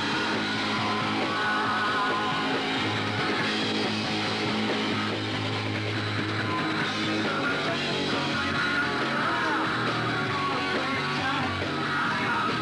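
Punk rock band playing live, with electric guitar over sustained bass notes.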